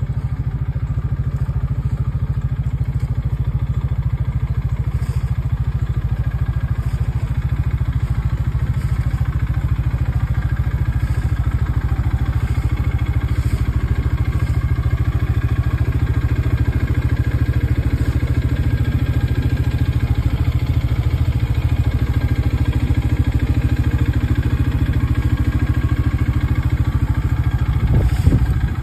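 Bighorn 400 UTV engine idling steadily with an even, low pulsing.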